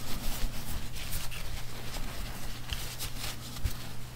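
Hands being wiped in a cloth shop rag: soft, irregular rubbing and rustling of the fabric, over a low steady electrical hum.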